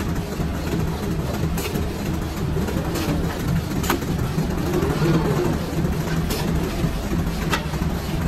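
Plastic bag-making machine running: a steady mechanical hum with sharp clicks every one to two seconds as its mechanisms cycle.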